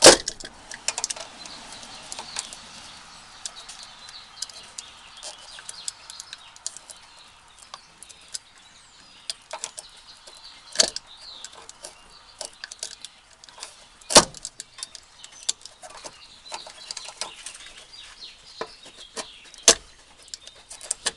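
Utility knife blade working through a rubber exhaust hanger: soft, uneven scraping and rasping broken by many small clicks and three sharp, louder knocks.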